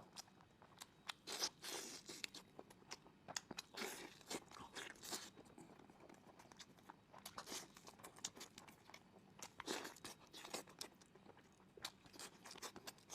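A person eating chicken close to the microphone: irregular chewing and biting, short mouth noises every half second to a second.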